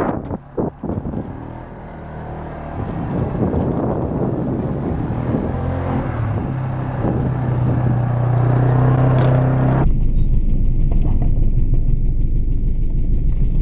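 Quad (ATV) engine running as it tows the gutted lawnmower. It pulls away and gets steadily louder over the first several seconds, with wind flapping on the microphone at the start.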